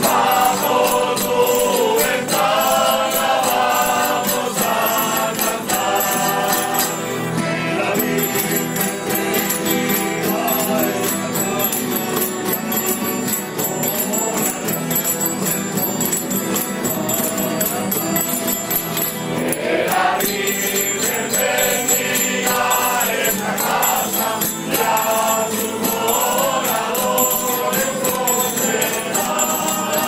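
A large group singing a traditional dawn song together. Guitars, other plucked string instruments and an accordion accompany the singing.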